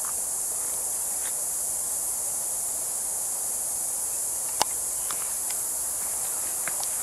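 Steady high-pitched insect chorus, with one sharp click about four and a half seconds in and a few faint short high notes.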